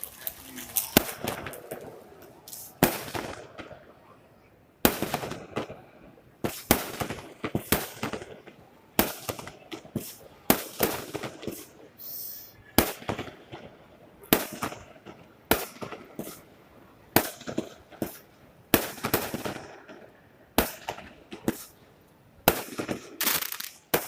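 Fireworks going off in a steady series of sharp bangs, about one or two a second throughout, with crackling after many of them.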